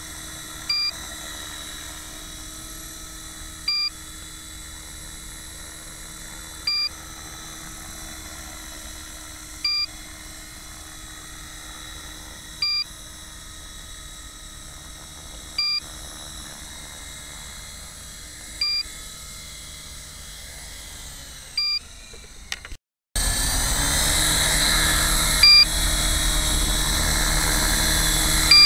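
Electric RC helicopter, an Align T-REX 450 PRO, flying with a steady motor and rotor whine. A short electronic beep repeats about every three seconds. About 23 seconds in the sound drops out for a moment and returns much louder.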